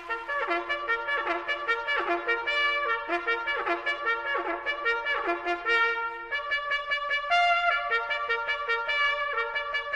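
Trumpet playing a lively solo melody of quick separate notes, some of them sliding in pitch, as intro music.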